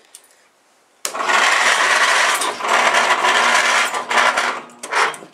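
1968 John Deere 140's Kohler K321 14 hp single-cylinder engine being cranked by its starter for about four seconds, starting about a second in, firing briefly ('kicked') but not catching: the battery is still weak and on the charger.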